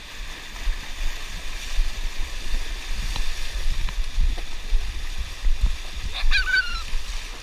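Whitewater from small breaking waves washing and fizzing in the shallows, with heavy low rumbling from water and wind buffeting the camera housing. About six seconds in, a child gives a short high-pitched squeal.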